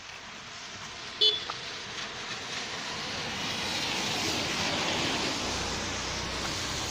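Road traffic noise: a vehicle's tyres hiss on the wet road, swelling steadily as it approaches. A short sharp sound comes about a second in.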